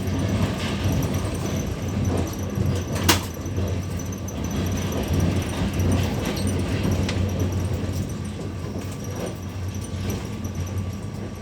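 Passenger train running, a steady low rumble and hum heard from inside the carriage, with a sharp click about three seconds in and a few fainter knocks.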